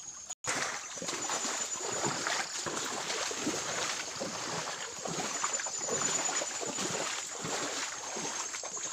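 Footsteps wading through a shallow muddy creek, with irregular splashing and sloshing of water. The sound cuts out briefly just after the start.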